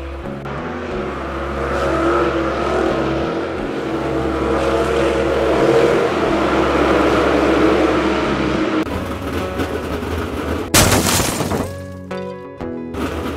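Background music over dirt late model race cars running on the track, with a short, loud burst of noise about eleven seconds in.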